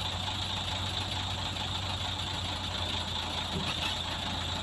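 Heavy diesel engine idling steadily, an even low hum that does not change.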